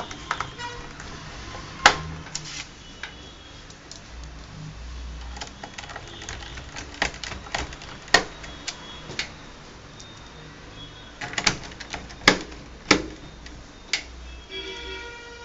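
Irregular clicks and taps of a small screwdriver and screws on the plastic bottom case of a Dell Inspiron 15R laptop as its base screws are driven back in, with a few sharper knocks among them.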